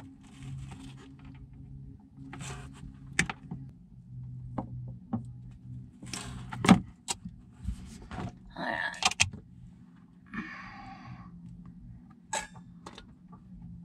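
Hands unfastening and pulling out an old Shurflo RV water pump: a string of sharp clicks and knocks from its plastic fittings, wires and housing, the loudest knock about seven seconds in, then two short stretches of rustling and scraping as the pump comes free. A low steady hum runs underneath.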